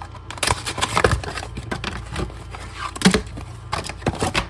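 A foil trading-card booster pack wrapper being handled and torn open, making a run of irregular crackles and taps.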